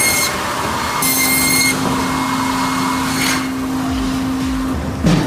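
Pezzolato TLA firewood processors working: steady machine noise with two short high-pitched squeals near the start, a steady drone from about a second in until near the end, and a knock near the end.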